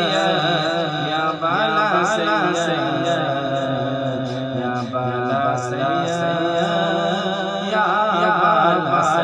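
A man singing an Urdu manqabat, a Sufi devotional praise poem, solo in one continuous line, with a wavering, ornamented melody that climbs higher near the end.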